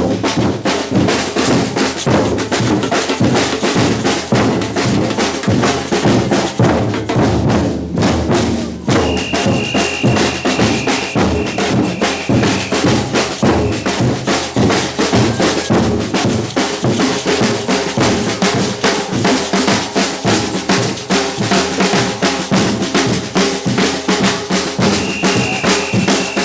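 Batucada samba percussion band playing a rhythm on bass drums and snare drums. The drumming breaks off briefly about eight seconds in and comes straight back in. A steady high tone sounds over it for a few seconds after the break and again near the end.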